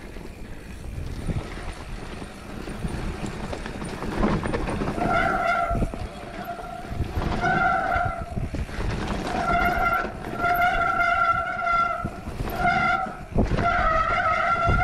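Mountain bike rolling fast down a steep, rain-wet dirt trail with a steady rumble and rattle. From about five seconds in, its disc brakes squeal in repeated steady high tones, on and off with each pull of the levers, a squeal typical of brakes wet from rain.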